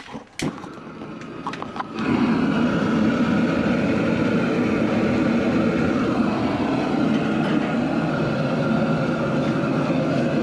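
A few sharp clicks, then about two seconds in a high-pressure propane boil burner catches and runs with a loud, steady rush of flame under a large aluminium stock pot.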